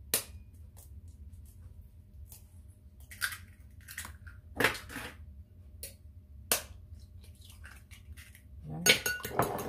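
Eggs being cracked on the rim of a glass bowl: sharp taps and clinks scattered through, with a quick run of clinks near the end.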